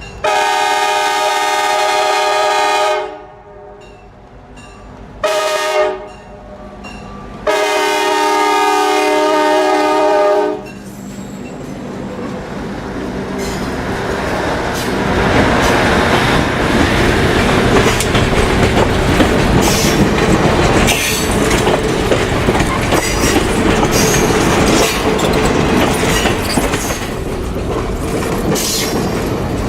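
Locomotive air horn sounding a long blast, a short one and another long one, the end of a grade-crossing signal, followed by the train rolling past, its wheels clattering over the rail joints and growing louder, with some wheel squeal.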